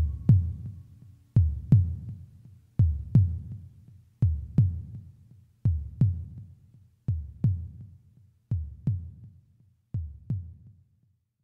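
Heartbeat-like thumping closing out a song: pairs of low thumps, lub-dub, repeating about every one and a half seconds, slowly fading until they stop near the end.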